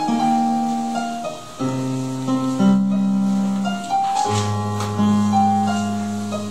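Keyboard playing slow held chords, each chord changing to the next every second or so.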